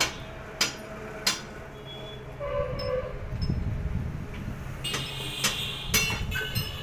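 A long steel bar clanking against a truck's wheel as it is worked, seven sharp metallic clanks with a brief ring, three in the first second and a half and four more near the end. A low steady engine rumble runs underneath and swells in the middle.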